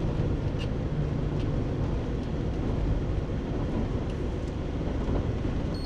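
Steady engine and tyre noise of a car driving on an asphalt road at about 50 km/h, heard from inside the cabin.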